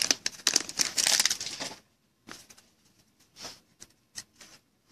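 A trading-card pack's wrapper crinkling and tearing open by hand for about the first two seconds. Then a few faint clicks and rustles as the cards are handled.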